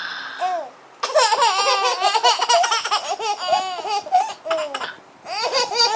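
Nine-month-old twin baby girls laughing, high-pitched bursts of giggling that overlap. The laughter breaks off briefly near the end and then starts again.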